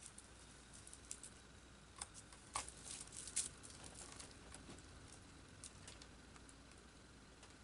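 Faint clicks and plastic crinkling as a small plastic LED-kit case is handled on a plastic bag while a small screw is fitted. The clicks come thickest a couple of seconds in and thin out after.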